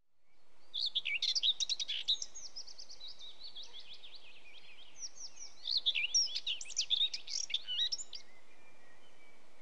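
A bird singing a rapid, varied run of chirps and trills, with a few brief pauses, stopping about eight seconds in, over a faint steady hiss.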